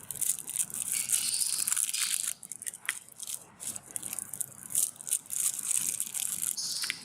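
Chocolate candy being crushed in a meat grinder: steady crunching and crackling, dipping briefly twice.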